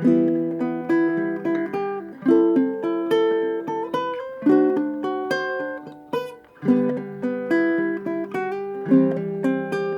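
Kala KA-SBG baritone ukulele, with a solid spruce top and laminated mahogany back and sides, played fingerstyle: a picked melody of single notes over ringing lower notes. There is a brief break a little after six seconds before the playing resumes.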